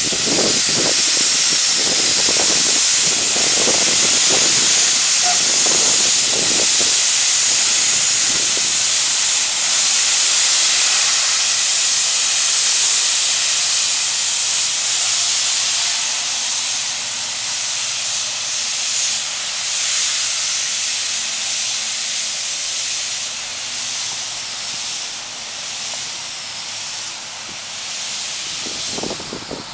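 4-4-0 steam locomotive hissing steam as it pulls away. The hiss is loud at first and fades gradually as the engine draws off down the track.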